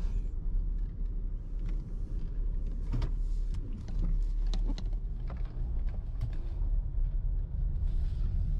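Car running, heard from inside the cabin as a steady low rumble, with scattered clicks and knocks of things being handled in the car.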